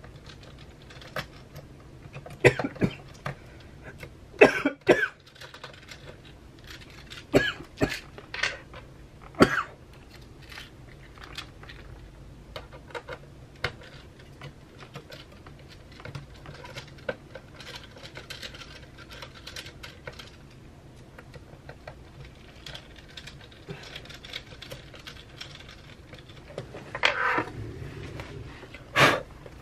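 Scattered small clicks, taps and knocks of metal parts and screws being handled as the inside of a mid-2011 Mac mini is put back together and its perforated metal cover plate screwed down over the fan. The sounds come irregularly, with a few louder knocks early on and a louder cluster near the end, over a low steady hum.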